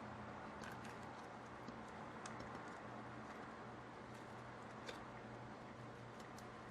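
Slime being worked by hand, giving faint, scattered small sticky clicks and pops over a low steady hum.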